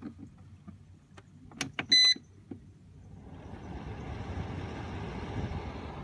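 A Rowenta dehumidifier being switched on: a couple of clicks and a short beep about two seconds in, then its fan starts up. The air noise rises over about a second and then runs steadily.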